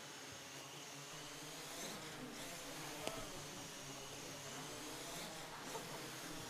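Quadcopter's propellers buzzing faintly, the pitch wavering as it manoeuvres, with a single sharp tap about three seconds in.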